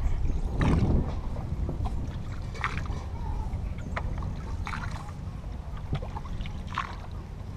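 Small wooden canoe being paddled, with a splash about every two seconds as the paddle strokes the water. A steady low rumble of wind on the microphone runs underneath.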